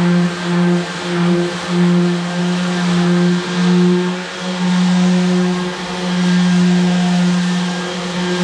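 Cordless random orbital sander running on a plywood desk top: a steady motor hum with the hiss of sandpaper on wood, wavering briefly now and then as it is pushed across the board.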